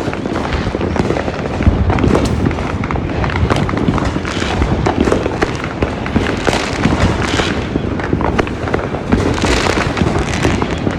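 Fireworks and firecrackers going off non-stop: a dense, unbroken barrage of overlapping cracks, pops and booms.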